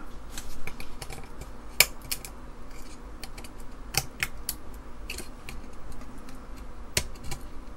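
Scattered small clicks and taps of fingers pressing and rocking DIP chips down into their sockets on an Apple II RAM expansion card, with three sharper clicks about two, four and seven seconds in.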